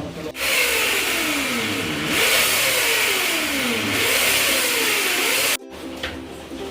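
A motor running under changing load, its pitch sagging again and again and then recovering, over a loud hiss. It starts and stops abruptly.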